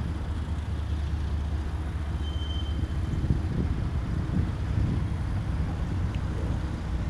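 EMD SD70ACe-T4 diesel-electric locomotive's 12-cylinder engine, a steady low rumble as it approaches slowly at the head of a freight train.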